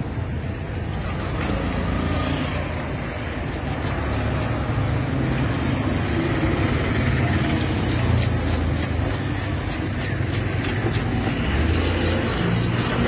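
Handheld fish scaler scraping the scales off a large Deccan mahseer, a quick run of short rasping strokes against a wooden board. Under it runs a steady low rumble.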